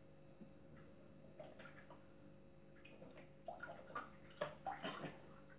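Cream pouring faintly from a carton into a stainless steel saucepan, glugging in short irregular spurts from about a second and a half in, with a few light knocks near the end.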